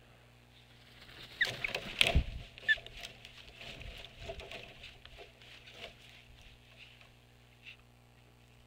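Osprey landing on a stick nest: loud knocks and a heavy thump with the wingbeats about a second and a half in, with a couple of short high chirps. Then several seconds of twigs rustling and scraping as the birds shift on the nest, fading to a few faint ticks.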